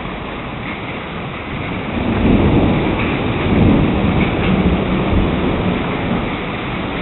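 Heavy thunderstorm rain pouring steadily, with deep rumbling that swells twice, about two and a half and three and a half seconds in.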